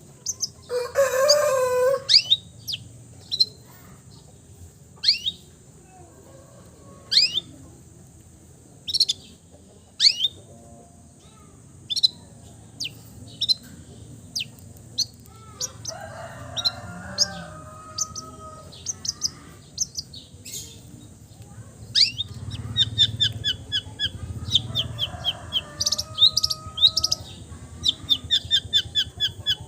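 Long-tailed shrike (cendet) singing mimicked bird calls: a loud harsh call about a second in, then sharp downward-sliding chirps every second or two, and a quick run of repeated high notes near the end. A steady high hiss sits underneath.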